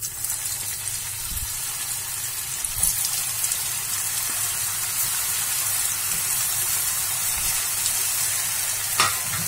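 Vegetable Manchurian balls deep-frying in hot oil in a kadai: a steady sizzle with a few sharp crackles.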